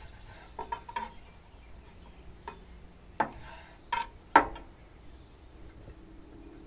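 Chef's knife and carving fork clicking and clinking against a wooden cutting board while carving a rotisserie chicken: a handful of sharp, short strikes, the loudest about four and a half seconds in.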